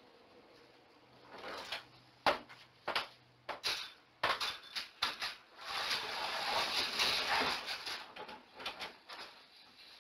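A series of sharp knocks and clatters, then about two seconds of rustling or scraping noise, followed by a few lighter knocks.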